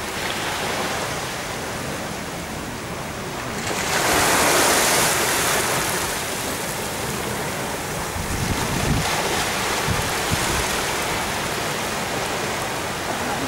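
Waves of a very high tide on the River Mersey washing against the river wall, with a louder surge of water about four seconds in. Wind gusts rumble on the microphone.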